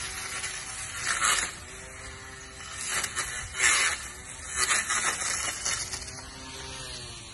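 Powered pole hedge trimmer running with a steady motor hum. Its cutter blades chew through leaves and twigs in several louder bursts, the loudest a little past the middle.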